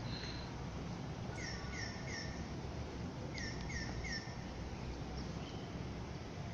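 A small bird chirping in two quick runs of three short, falling chirps, about a second and a half in and again about three and a half seconds in, over a steady low background rumble.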